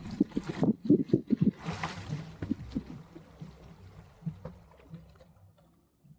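Water splashing and slapping against the stern and rudder of a small sailboat under way, with a run of quick low knocks in the first few seconds and a louder rush about two seconds in. The sound dies away toward the end.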